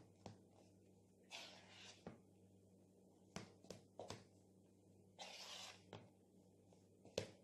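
Faint sounds of a spoon pressing and working crumbly flour-and-hot-water dough in a mixing bowl: a scatter of soft taps and knocks, with two short scraping rustles about a second and a half in and again a little past the five-second mark.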